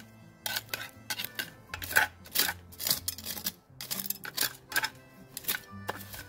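Metal hand trowel stabbing and scraping into gritty potting soil along the inside wall of a glazed ceramic pot, a quick run of rough scrapes, about two or three a second. The soil is being loosened to free a long-potted plant's root ball for repotting.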